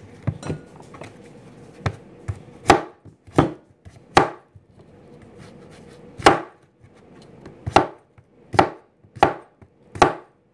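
Large kitchen knife chopping through raw pumpkin and striking the cutting surface: about ten sharp chops at uneven intervals, a second or so apart.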